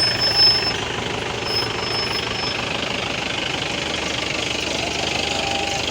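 A vehicle's engine running steadily with a rough, knocking note.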